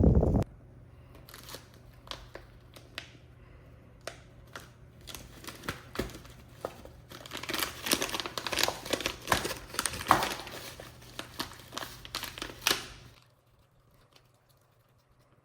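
Crinkling and rustling of something being handled, with many small clicks, busiest in the second half and stopping abruptly about 13 seconds in.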